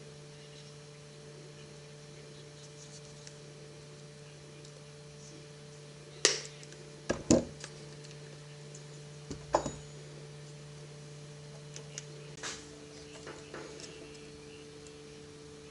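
A steady electrical hum with a few sharp clicks and knocks, like parts or tools being handled on a bench, spread over the middle of the stretch. The loudest knocks come in a cluster about six to seven seconds in, and the pitch of the hum changes about twelve seconds in.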